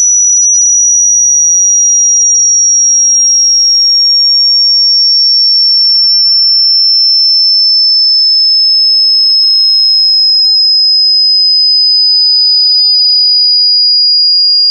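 A loud, pure high-pitched electronic tone held without a break, gliding slowly and steadily down in pitch.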